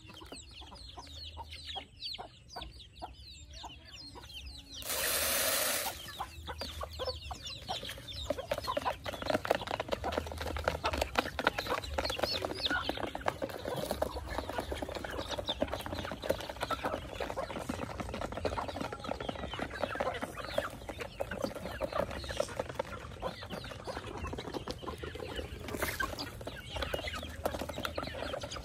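A flock of chickens and young chicks clucking and calling continuously as they feed, a busy stream of short calls. About five seconds in there is a loud rush of noise lasting about a second, louder than the calls.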